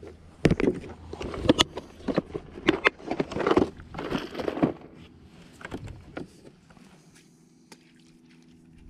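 Knocks and rustling from gear being handled aboard a kayak for about the first five seconds, then a faint steady hum.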